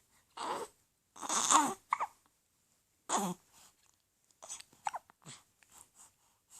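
Four-week-old baby with the hiccups, making a string of short, separate vocal sounds: brief whimpers and small hiccup squeaks. The loudest comes about a second and a half in, with smaller ones spread through the rest.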